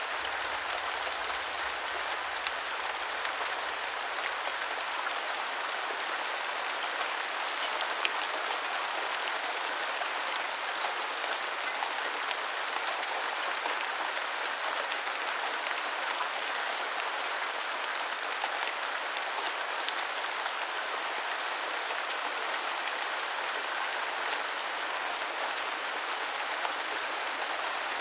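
Steady rain falling in an even hiss, with scattered sharp ticks of individual drops striking close by.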